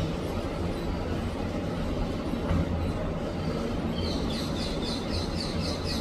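A parrot chirping: a quick run of short, high, evenly repeated chirps, about three a second, starting about four seconds in, over a steady low rumble.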